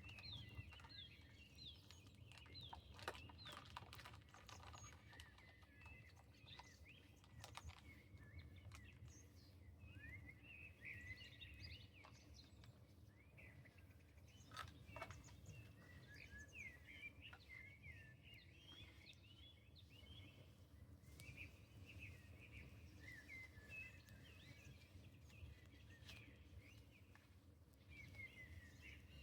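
Faint chirping of small birds, many short quick chirps, over a steady low rumble, with scattered sharp crackles from a campfire.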